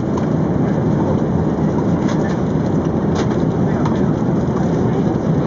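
Steady rushing cabin noise inside an Airbus A380 airliner in flight, the even sound of airflow and engines, with a few faint clicks.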